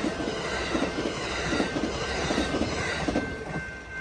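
Double-deck passenger cars of the Amtrak Coast Starlight rolling past at speed: steady wheel-on-rail rumble with irregular clattering knocks. It drops away about three and a half seconds in as the last car passes and the train recedes.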